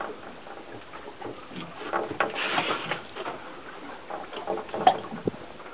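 A fishing reel being worked against a hooked fish on a bent rod, with scattered irregular clicks and knocks over a steady haze of noise.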